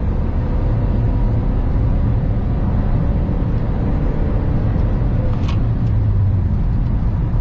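Cabin noise of a remapped Nissan X-Trail 1.6 dCi diesel driving at high motorway speed: a steady, heavy low rumble of engine and road noise. A single short click comes about five and a half seconds in.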